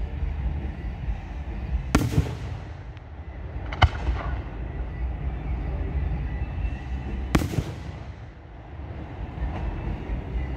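Aerial firework shells bursting overhead: three sharp bangs, about two, four and seven seconds in, each fading away in a rolling echo, over a constant low rumble.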